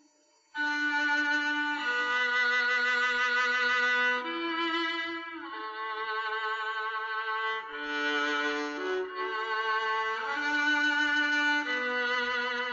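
Viola playing a slow solo melody, one bowed note at a time with vibrato. It begins about half a second in, after a short silence.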